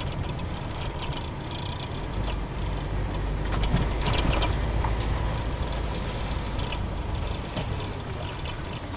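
Car engine and road noise heard from inside a moving car: a steady low rumble, with a few light clicks and rattles.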